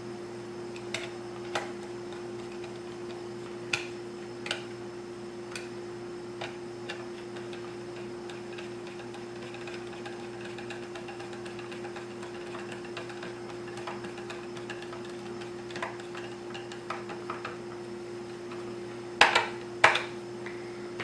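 Screwdriver clicking and tapping against the housing of an old Craftsman chainsaw as the screws of its top cover are driven in: scattered light clicks a few seconds apart, then two louder clacks near the end, over a steady hum.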